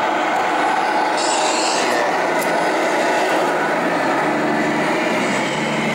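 Engine sound from a radio-controlled scale truck, steady over dense background noise, with a short high hiss about a second in and a steady low hum joining near the end.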